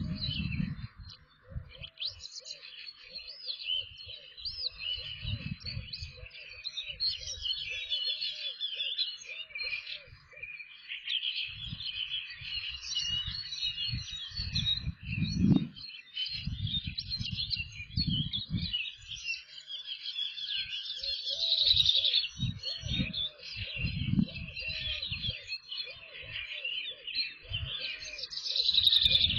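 Small songbirds chirping and singing, with a faint low call repeating about twice a second during two stretches, and irregular low rumbles.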